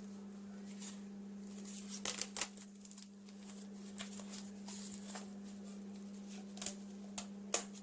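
Paper and rubber band being handled as a homemade rolled-paper rubber-band shotgun is reloaded: small rustles and clicks, a few sharper ones about two seconds in and near the end, over a steady low hum.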